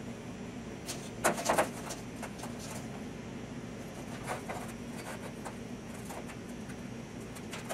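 Handling noises from working on a large steel plate while measuring and marking it out: scattered taps, knocks and rubs, with a quick cluster of about three louder knocks about a second in, over a steady low hum.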